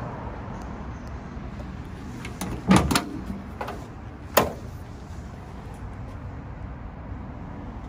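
Datsun 1600 Roadster race car's door being unlatched and swung open: a cluster of sharp clicks and knocks from the latch about three seconds in, the loudest moment, then a lighter click and another sharp knock over the next second and a half.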